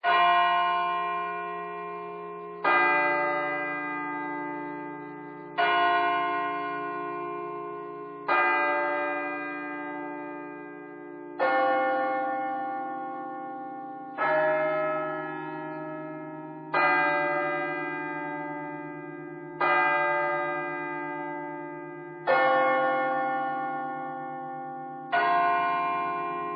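Large bell tolling, struck about every three seconds, ten strikes in all, each ringing out and fading before the next. The note shifts slightly from strike to strike.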